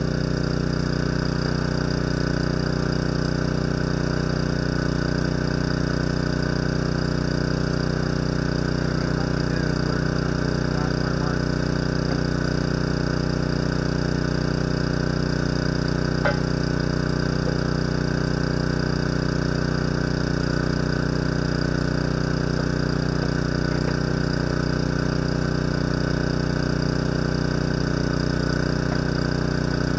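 An engine idling steadily at one unchanging pitch, with a single sharp click about halfway through.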